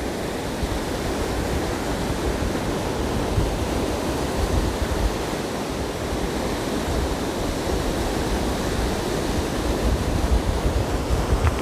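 Stormy sea surf breaking and washing up the beach, a continuous rushing wash of waves, with wind buffeting the microphone in gusty low rumbles.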